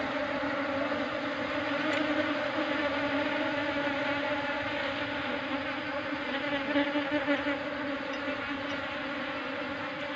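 A mass of agitated honeybees buzzing in a steady, loud drone as the colony is disturbed and moved by hand.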